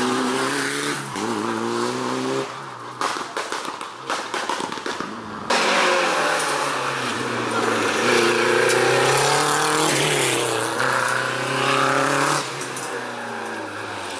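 Rally cars running flat out on a stage. A Mitsubishi Lancer Evolution's engine revs and shifts as it passes, followed by a run of irregular crackles. About five and a half seconds in, a Renault Super 5 rally car's engine comes in loudly, its note rising and falling through gear changes before fading as it drives away.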